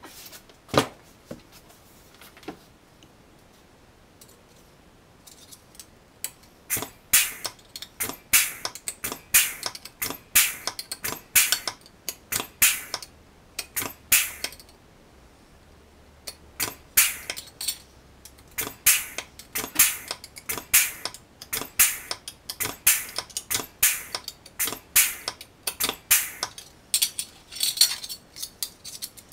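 Aluminium sheet-metal parts clinking against each other and against a bench-mounted pneumatic C-frame tool. The first few seconds hold only a few isolated clicks; about six seconds in, a long run of sharp metallic clicks and clinks starts and keeps coming in quick clusters.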